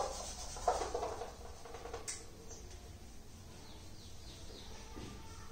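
Whiteboard marker squeaking in short strokes as lines are drawn on the board.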